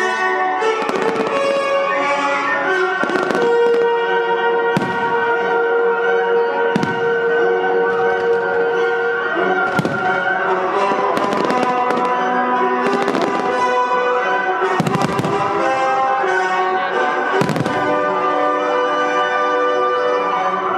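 Aerial firework shells bursting with a sharp bang every one to three seconds, over orchestral music with long held notes.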